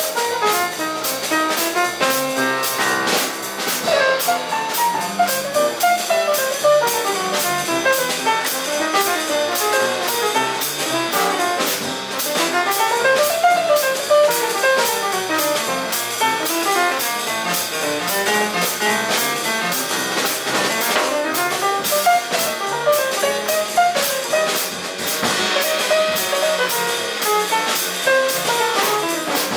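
Jazz piano trio playing an up-tempo tune: upright piano in quick single-note runs that climb and fall, over double bass and a drum kit keeping steady cymbal time.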